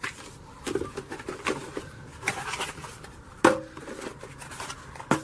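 Packaging being handled while items are taken out of a box: irregular rustles, scrapes and light clicks, with one sharp knock about three and a half seconds in.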